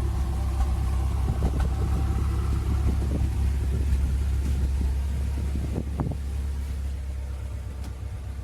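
BMW M6's S63TU twin-turbo V8 with catless downpipes idling just after its first start on a new tune. It holds a steady low rumble without a raised cold-start idle, the sign that the tune's cold start delete is on, and eases slightly quieter over the last few seconds.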